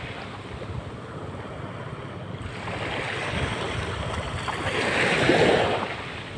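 Sea surf washing on the shore, mixed with wind on the microphone; the wash swells louder about five seconds in, then falls back.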